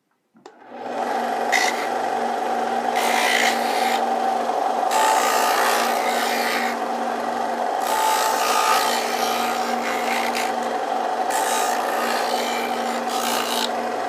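Bench disc sander switched on about half a second in and running with a steady motor hum, while the corner of a wooden piece is pressed freehand against the abrasive disc about six times. Each pass is a loud rasp of wood being sanded over the hum.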